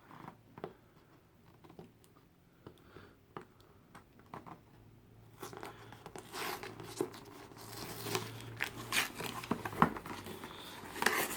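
Product packaging being opened by hand: a few faint clicks and taps at first, then from about halfway through, busy crinkling and tearing of packaging that grows louder.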